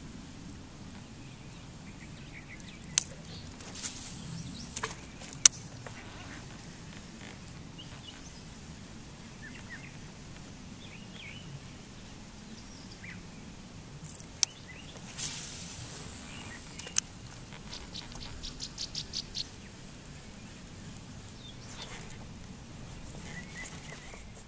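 Sharp knocks and clicks close by in a sit-in kayak, a handful within the first six seconds and a few more in the middle. Past the middle comes a quick even run of about eight clicks, some five a second.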